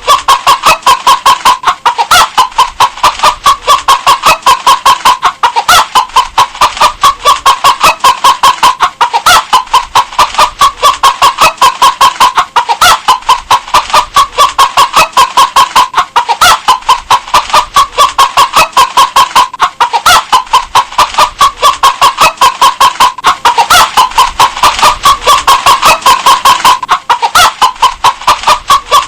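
Domestic hen clucking in a steady, rapid run of short clucks, about four or five a second.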